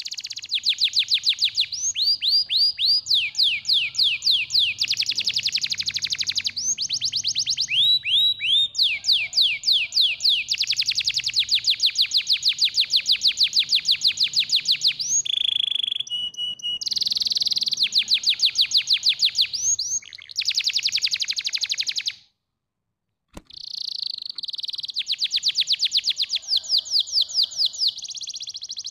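Domestic canary singing a long run of fast trills, each a rapid string of repeated whistled notes, switching from one trill to the next every few seconds. The song breaks off suddenly for about a second about three-quarters of the way through, then goes on.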